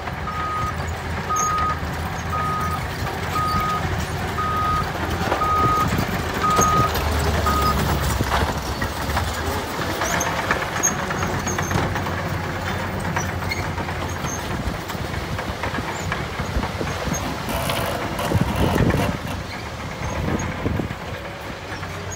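Dump truck diesel engine running while its raised tipper bed sheds a load of rock and soil, the rubble sliding and clattering out. A reversing alarm beeps about once a second for the first eight seconds or so, then stops.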